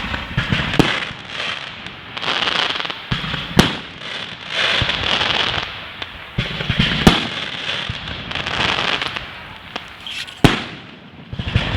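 Fireworks display: four sharp bangs of bursting shells about three seconds apart, with waves of hissing crackle between them.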